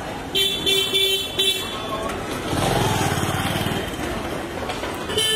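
Street traffic: a vehicle horn toots four short times, then a motor vehicle's engine goes past close by, and a horn toots once more near the end.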